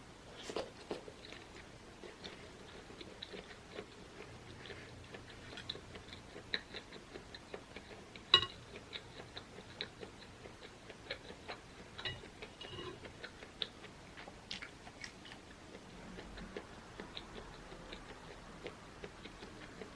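Close-up mouth sounds of someone chewing a springy beef meatball: soft irregular clicks and smacks, with one sharper click about eight seconds in.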